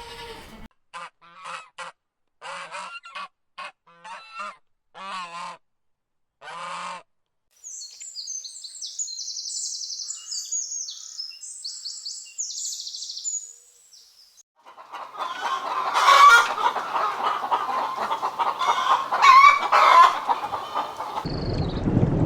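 Geese honking, a run of about eight separate calls, followed by small birds chirping high and fast. In the last third, birds keep calling over a steady rushing noise.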